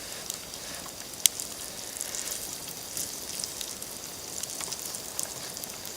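Salo (salted pork fat) frying in a skillet over a campfire: a steady high sizzle scattered with small pops and crackles, with one sharper crack about a second in.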